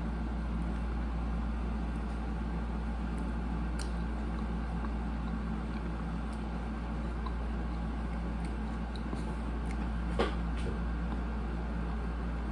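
Steady low hum and hiss of room tone, with one short click about ten seconds in.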